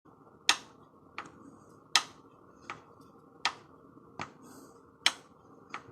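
Worn piston in a Skoda Fabia 1.4 BKY petrol engine knocking against the cylinder wall: sharp knocks, alternating loud and soft, about every three-quarters of a second. It is piston slap from heavily worn, loose pistons.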